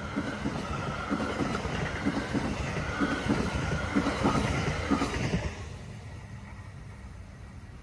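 NJ Transit multilevel passenger coaches rolling past, with a steady rumble and a quick run of wheel knocks. The cab car passes about five and a half seconds in and the sound drops off suddenly to a low hiss.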